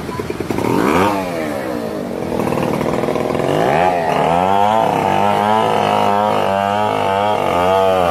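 A small engine revving, its pitch sweeping up and down about a second in, then wavering quickly up and down near the end.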